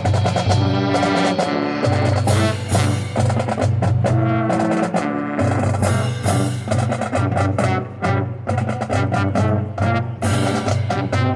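High school marching band playing a loud passage, brass holding sustained low notes over a drumline hitting rapid, sharp percussion strokes.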